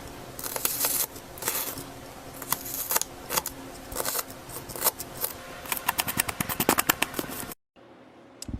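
ASMR crushing sounds: crisp crackling and crunching of crumbly material, many sharp clicks in irregular clusters that come faster toward the end, then a sudden cut to silence near the end.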